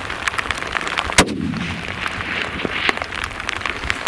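A single hunting-rifle shot about a second in, with its report echoing and dying away off the mountainside.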